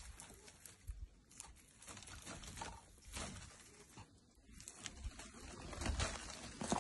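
Faint crackling and rustling of dry vine stems as a cat bites and paws at them, with scattered small clicks. The rustling grows louder near the end.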